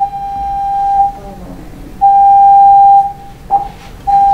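Building fire alarm sounding a steady high electronic tone in pulses about a second long with gaps of about a second, the middle pulse loudest, as part of a voice-alarm evacuation warning that a fire has been reported in the building.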